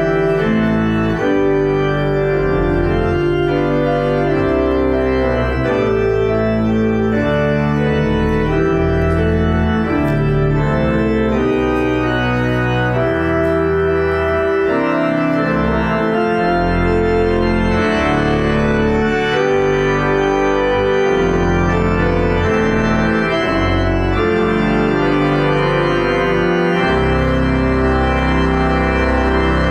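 Organ prelude: slow, sustained chords over a moving bass line, steady in level.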